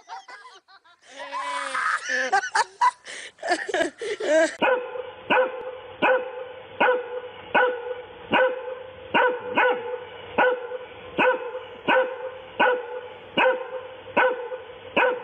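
A dog barking over and over at an even pace, about once every three quarters of a second, starting about four and a half seconds in. Before that there are a few seconds of irregular voice-like sound.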